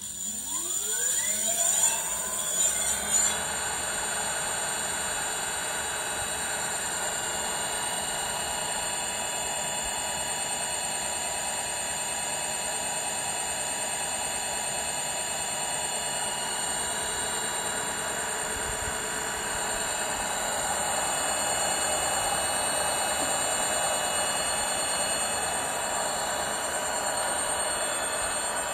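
Leaf Bike 48 V 1500 W direct-drive brushless rear hub motor spinning a 26-inch wheel with no load. Its whine climbs in pitch over the first three seconds as it winds up to speed, then holds as a steady whine.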